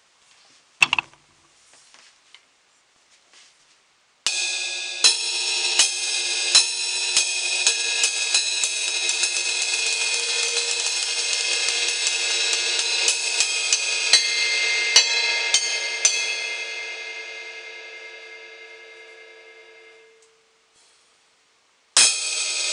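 A sharp click about a second in. Then an 18-inch Paiste Signature Crystal Crash cymbal is struck over and over with maple drumsticks, building a bright, sustained wash. The strikes stop around sixteen seconds, the cymbal rings down to silence by about twenty seconds, and it is hit hard again near the end.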